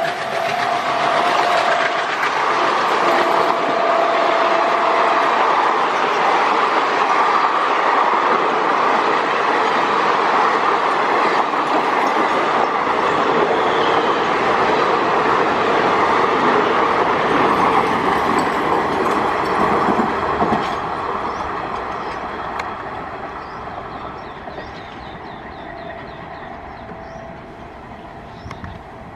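Express passenger train racing past at high speed behind a WDM3A diesel locomotive. The tail of the horn dies away in the first few seconds, and then the coaches rush by, wheels clattering on the rails. The noise fades steadily in the last third as the train moves away.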